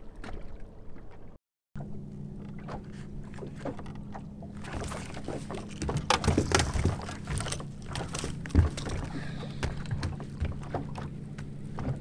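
Steady low hum of a boat motor on a bass boat, with wind gusting on the microphone and scattered knocks; the sound drops out briefly about a second and a half in.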